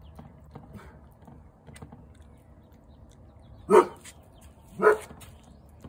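A dog barking twice, about a second apart, in the second half.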